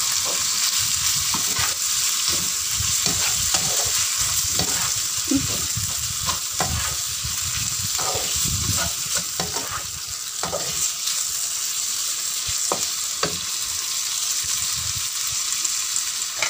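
Beef and fried potato wedges sizzling in a nonstick wok while a spatula stirs and turns them, clicking and scraping against the pan. The clicks come thick and fast at first and grow sparser over the last few seconds.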